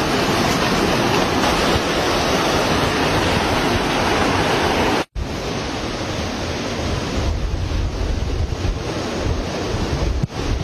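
Steady rushing noise of wind buffeting the microphone over moving water, heavier and lower in the second half, cut off for an instant about five seconds in.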